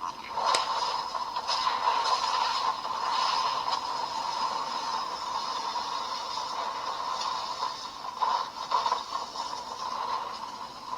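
CSM Century King Sun Driver toy belt playing its attack sound effect through its small built-in speaker: a scraping, clattering sound clip of a sword being pulled out, with sharp clanks scattered through it.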